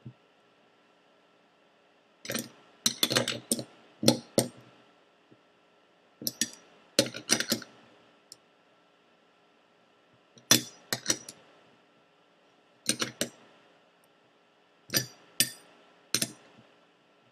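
Metal wrench clinking against a roller skate kingpin as the kingpin is unscrewed. The sharp clicks come in short bunches every few seconds, with quiet gaps as the wrench is set back on for the next turn.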